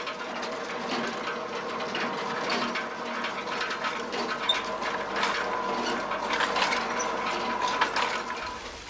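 Machinery clattering and rattling over a steady whirring hum. Near the end it stops, and an even splash of running water from a fountain takes over.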